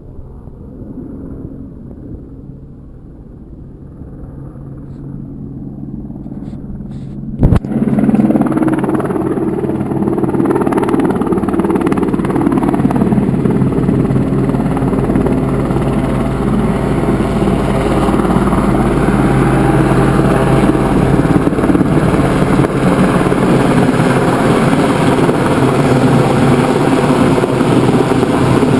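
RAF Westland Sea King search-and-rescue helicopter approaching, its rotor and turbine noise growing from a faint low rumble to a loud, steady drone as it flies in low. A single sharp thump comes about seven and a half seconds in.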